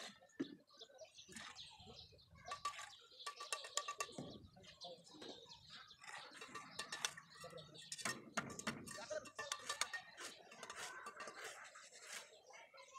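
Sharp clicks and taps of a mason's hand tool striking red clay bricks, coming in quick clusters.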